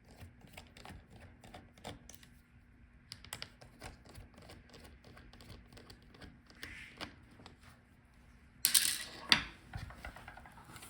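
Small scattered clicks and taps of a screwdriver and screws being taken out of a laptop's hinges, with a louder brief scrape or clatter about nine seconds in. A faint steady hum runs underneath.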